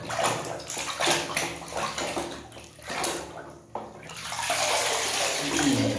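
Water sloshing and splashing in a plastic basin as a hand scrubs a toy under the water, in irregular swishes with a short lull a little past the middle.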